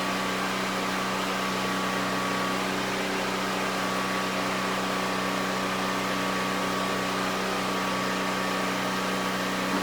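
A steady machine hum with a faint constant whistle-like tone above it, unchanging throughout, with no knocks or clicks.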